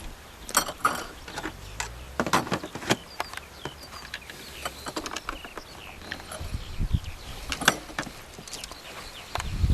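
Irregular sharp clicks and knocks, like something being handled, with faint chirps in the middle.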